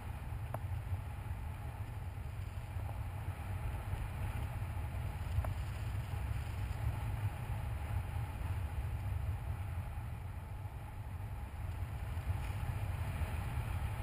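Wind noise from a paraglider pilot's flight airflow buffeting an action camera's microphone: a steady low rumble under a rush of air, with a few faint ticks.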